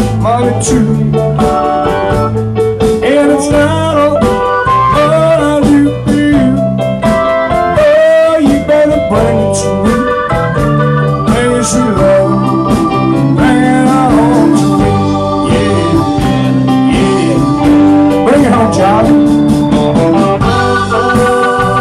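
Live blues-rock band playing, with organ, electric guitar, bass guitar and drums, and a male voice singing over them.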